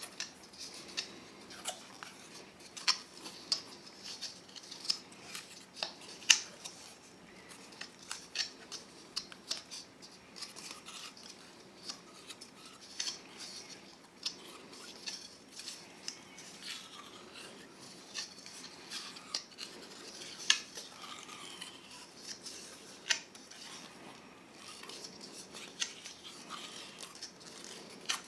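PTFE plumbing tape being pulled off its roll and wound onto the threaded tail of a chrome radiator valve: quiet, irregular crackles and small clicks of the tape and the metal fitting being handled.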